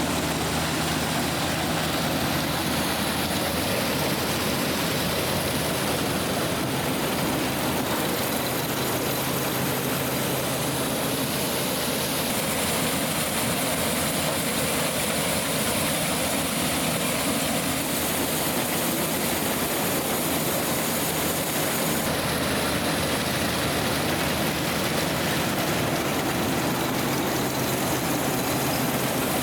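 A John Deere tractor's engine running and driving a New Idea corn picker-sheller through its power takeoff: a steady mechanical din of engine with the machine's chains, augers and belts turning.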